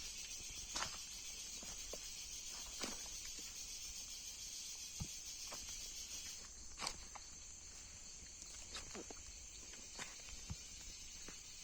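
Faint outdoor ambience: a steady high hiss that thins about halfway through, with scattered irregular clicks and snaps.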